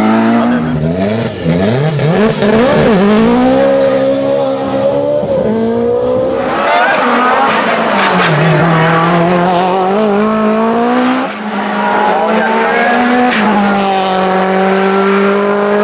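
Race car engines accelerating hard up a hillclimb course, one car after another. The pitch climbs and drops sharply at each gear change, several times over.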